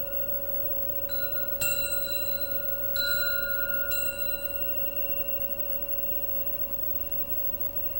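Acoustic metal instruments ringing: a steady held tone sounds throughout, and four metal strikes in the first half each ring on and fade slowly, the second and third the loudest.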